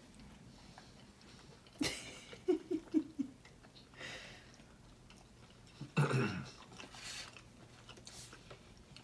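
Quiet mealtime sounds of a toddler eating a burrito: a sudden sharp noise just before two seconds in, then a quick run of four short hums, and a longer falling voice sound about two-thirds of the way through, with faint rustling between.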